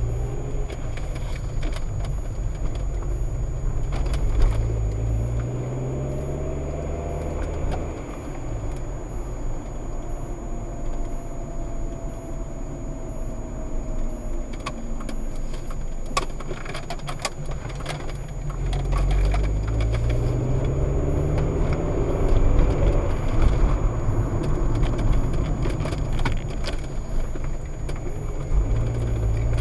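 Car engine and road noise heard from inside the cabin while driving. The engine pitch rises several times as the car accelerates through the gears, and a few sharp clicks or rattles come past the middle.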